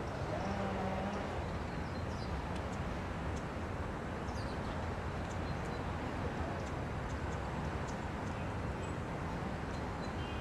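Steady low rumble of city traffic, with short faint high bird chirps scattered through it.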